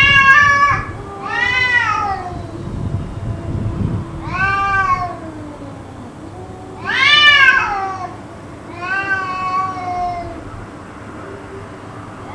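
Cat yowling over and over: about five long, rising-and-falling meows, a second or so each, with a fainter low drawn-out tone between them. The uploader wonders whether the cats are fighting.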